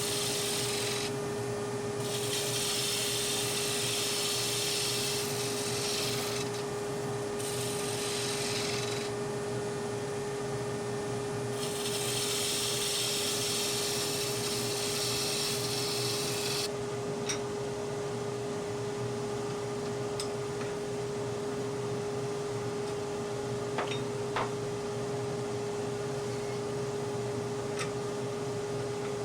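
Wood being worked on a running woodturning lathe. The lathe hums steadily throughout, and four hissing spells of the tool or abrasive on the spinning wood come in the first half. After that the lathe runs on its own, with a few light clicks.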